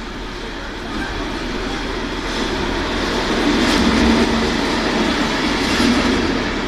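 Loaded container wagons of a freight train rolling past at close range: continuous wheel-on-rail rumble and clatter, getting louder past the middle.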